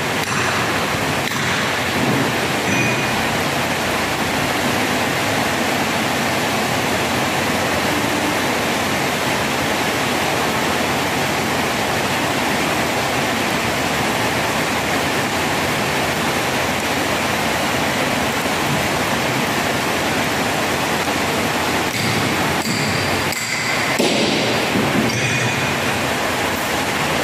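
Heavy rain falling, a steady loud hiss with no break, with a few brief louder rustles or knocks near the end.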